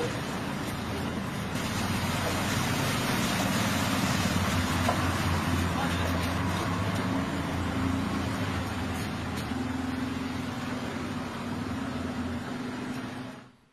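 Motor vehicles driving slowly through a flooded street: a steady engine hum under the hiss of tyres in water. It cuts off near the end.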